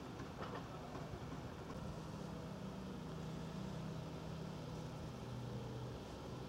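A mobile crane's diesel engine running steadily while the crane holds a suspended load, its note dropping a little about five seconds in.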